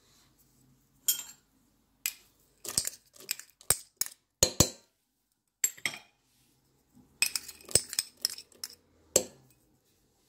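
Irregular clinks and taps of dishes and a spoon against a stainless-steel mixing bowl as chopped almonds, candied fruit and raisins are added to cake batter. The sounds come in short scattered knocks, bunched about halfway through and again near the end.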